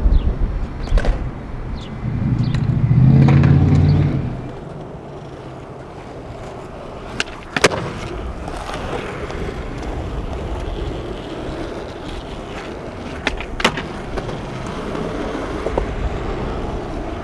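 Skateboard wheels rolling over rough concrete with a steady grinding rumble, broken by sharp clacks of the board about seven and a half seconds in and twice in quick succession near thirteen and a half seconds. A loud low hum sounds for about two seconds starting two seconds in.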